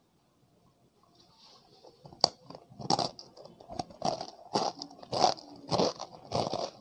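Crisp fried chegodilu (rice-flour rings) bitten through with one sharp crack about two seconds in. They are then chewed with crunches that come about two a second.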